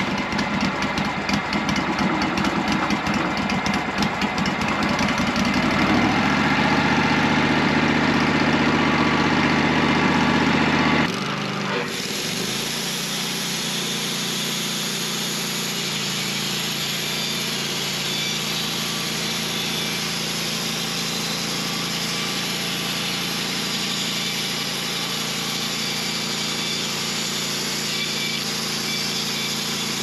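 Wood-Mizer LT15 Wide band sawmill running, its engine driving the band blade through a small log. About eleven seconds in, the sound changes abruptly: the low engine note drops away and a steady higher hiss takes over. The blade is cutting fast and freely on a newly replaced blade-guide roller bearing.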